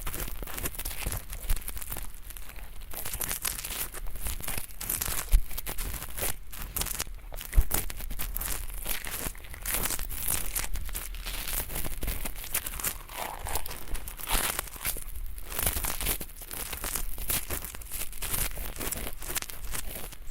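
Ear pick scratching at thin, flaky earwax close to the microphone: dense, crackly scratching strokes, with two sharper pops about five and seven and a half seconds in.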